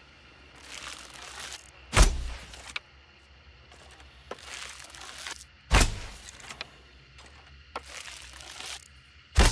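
A hunting bow being shot three times, each shot a few seconds apart. Each shot has about a second of soft rustling, then a sharp, loud snap of the released string with a deep thump.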